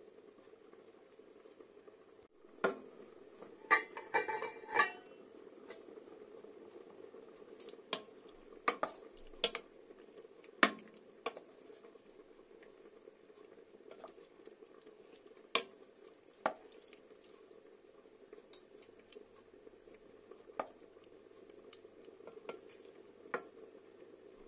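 Wooden spoon stirring chicken in cream sauce in a stainless steel pot, with scattered knocks and clicks against the pot's side. A quick run of ringing metal clinks comes about four seconds in, and a steady low hiss runs underneath.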